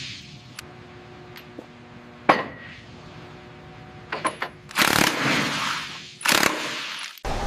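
Heavy machinery equipment being locked into place: a low mechanical hum, a single sharp clank about two seconds in, a few light ticks, then two loud rushing hisses.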